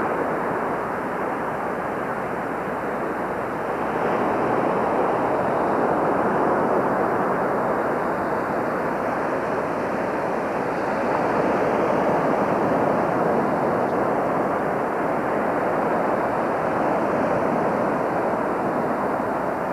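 Ocean surf washing onto the beach: a steady rush that swells twice, about four and twelve seconds in.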